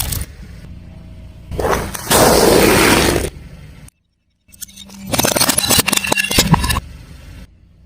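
Things being crushed under a car tyre. There is a loud noisy burst lasting about a second and a half, then a sudden break to silence, and later a run of crackling crunches.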